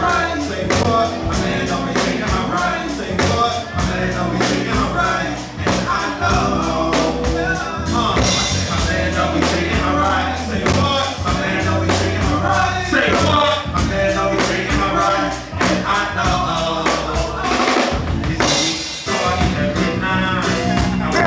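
A live hip-hop band playing a steady beat on a drum kit, with a rapper's vocals through the venue's PA over it.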